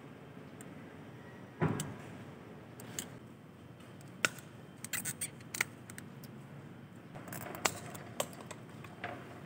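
Scattered light metallic clicks, clinks and knocks of small metal parts and hand tools being handled, a dozen or so at uneven intervals, with a cluster about halfway through.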